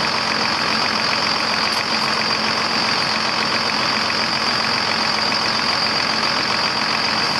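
Engine idling steadily, a constant hum with no change in speed.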